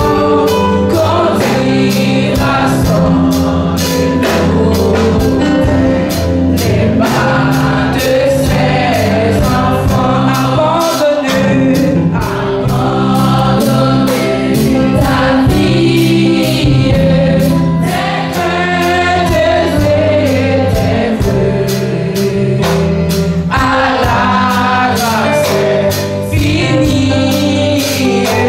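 A group of young women singing a French gospel hymn together, with electric keyboard accompaniment and a steady percussion beat.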